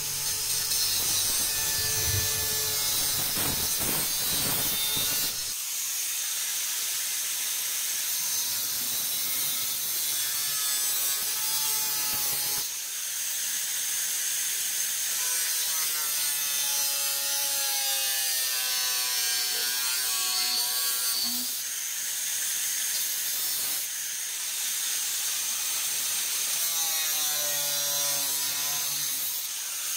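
Angle grinder with a 1 mm cutting disc cutting through rusted sheet steel: a steady grinding hiss, the motor's whine dropping in pitch a few times as the disc bites into the metal.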